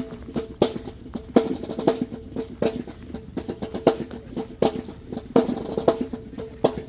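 Marching band drumline playing a cadence: loud accented drum strokes about every two-thirds of a second over a busy run of quicker snare strokes.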